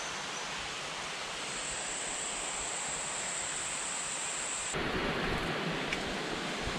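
Steady rush of flowing creek water, an even hiss with no distinct events; the sound changes abruptly near the end, turning fuller and lower.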